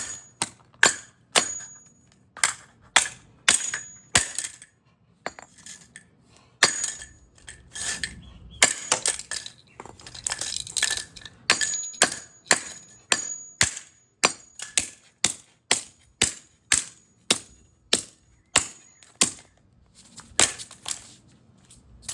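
A hammer repeatedly smashing a pair of headphones: sharp blows, often close to two a second, with a short break about five seconds in. Some blows leave a faint high ring.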